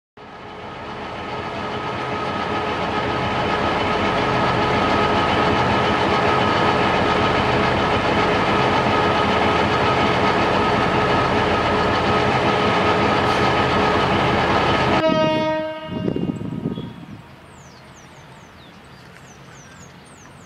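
Diesel locomotive horn held in one long, steady blast of several notes together, fading in and then cutting off abruptly about fifteen seconds in. Afterwards only a quiet background with birds chirping.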